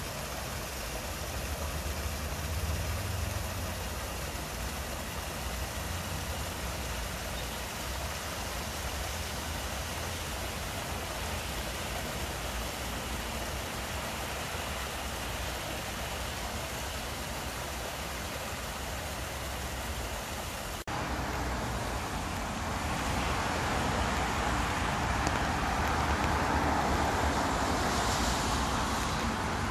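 Steady hiss of rain and a small stream trickling over rocks, over a low rumble of distant city traffic. After a sudden change about two-thirds of the way through, a brighter hiss of traffic on wet road swells and eases off near the end.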